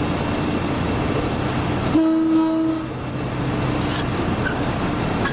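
Train horn giving one short blast, under a second long, about two seconds in, over the steady running noise of a slow-moving train.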